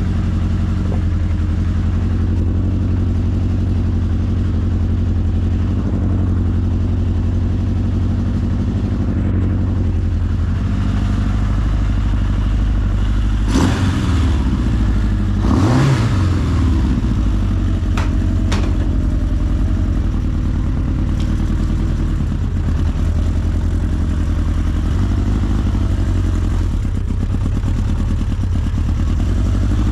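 1981 Honda CB900's air-cooled inline-four engine running steadily, with a brief burst of revs that rises and falls back about halfway through.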